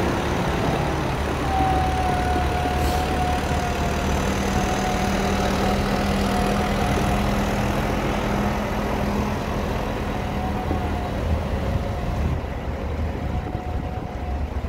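A John Deere tractor's diesel engine runs as the tractor drives off over cobbles, with a thin steady whine above its low drone. The sound fades away near the end.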